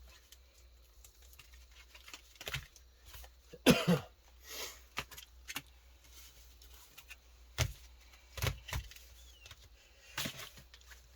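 Scattered rustles, crinkles and taps of Pokémon booster packs being handled and picked out of a pile, the loudest cluster about four seconds in.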